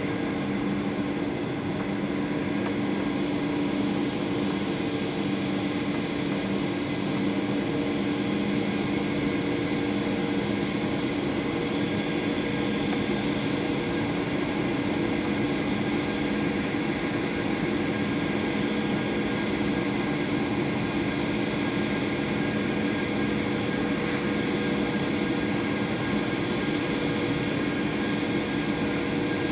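Jet airliner's engines and cabin air heard from a passenger seat on the approach to landing: a steady rushing drone with a low hum and a faint high whine.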